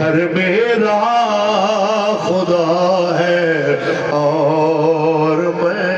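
A man chanting a devotional Urdu verse in long, wavering held notes, amplified through a microphone and loudspeaker.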